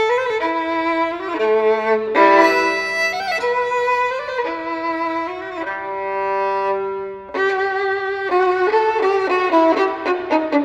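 Violin playing slow, sustained bowed notes with other notes sounding beneath them; from about eight seconds in the notes become shorter and more detached.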